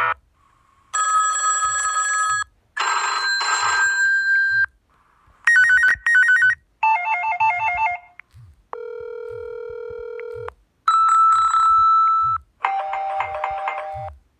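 Phone ringtones previewed one after another on an LG phone's speaker: about seven short snippets of different tones and melodies, each cut off after a second or two as the next one in the list is selected.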